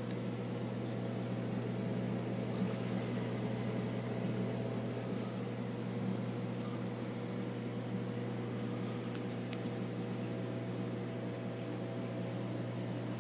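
Reef aquarium pumps running: a steady low electrical hum with a few fixed higher tones over an even hiss, unchanging throughout.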